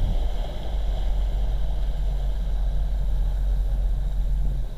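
Motorboat engine running under way, with the rush of the churning wake behind the stern; the engine eases off near the end.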